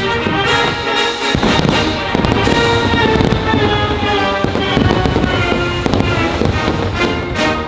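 Aerial fireworks bursting in rapid succession over a loud patriotic music soundtrack.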